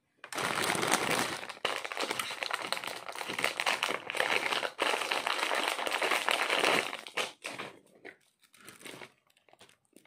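Plastic packaging bag crinkling and rustling as a piece of jewellery is unwrapped by hand. It stops about seven seconds in, followed by a few light handling clicks.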